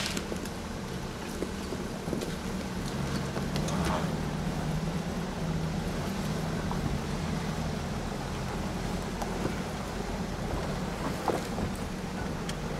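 Jeep engine running steadily at low speed, with scattered clicks and knocks from the vehicle over the drive.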